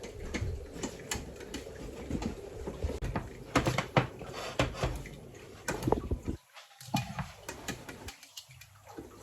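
Scattered light clicks and knocks of kitchen things being handled, such as plates and utensils, with no steady sound underneath.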